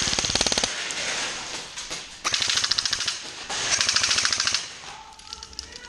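Airsoft guns firing on full auto: three bursts of rapid shots, each about a second long, one at the start and two almost back to back from about two seconds in.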